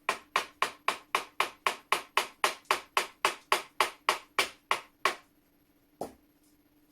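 Small hammer tapping lightly on a punch, an even run of metal strikes about four a second that stops about five seconds in, followed by one more strike a second later. The blows are driving a seized part out of a very rusty flintlock lock.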